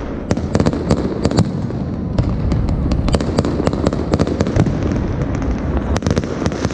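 Fireworks going off: an irregular run of sharp bangs and crackles, several a second, over a continuous low background of overlapping bursts.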